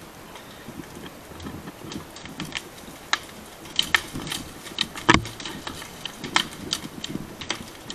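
Dry grass and brush burning close by, crackling with irregular sharp pops and snaps, and one louder snap about five seconds in.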